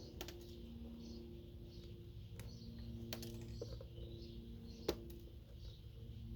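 Scattered small clicks and snaps as plastic RAM slots are worked off a scrap motherboard, with one sharper knock just before five seconds in.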